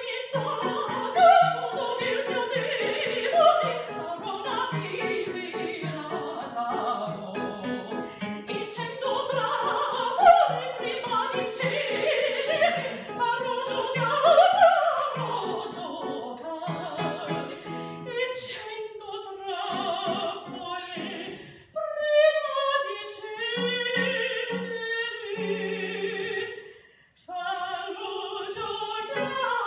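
Female opera singer singing an aria with vibrato and sweeping runs, accompanied by a digital piano. The voice and accompaniment stop briefly twice in the last third.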